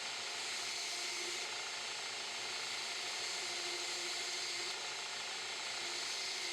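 Belt grinder running steadily: an even hiss with a faint steady hum beneath it.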